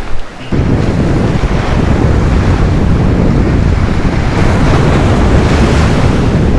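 Wind buffeting the microphone over surf breaking and washing against jetty rocks. A loud, steady rumble that sets in suddenly about half a second in.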